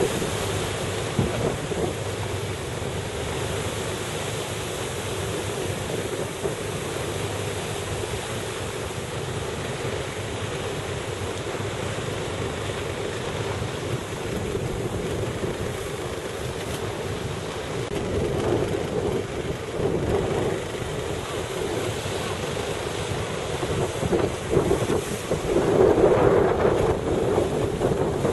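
Wind buffeting the microphone on a moving boat, over a steady wash of sea and boat noise, with louder gusts about two-thirds of the way through and again near the end.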